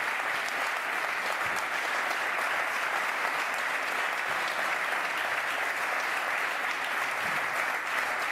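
An audience clapping steadily: dense, even applause that holds at the same level throughout.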